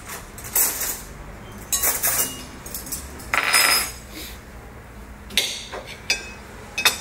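Cutlery clinking and scraping on a plate: a handful of short sharp clinks, with one longer scrape about three and a half seconds in, the loudest of them.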